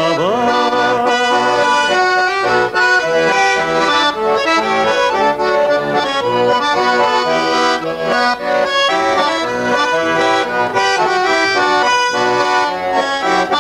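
Russian garmon, a button accordion, playing an instrumental passage of a folk song: a quick run of chords and melody notes at a steady, loud level, with no singing.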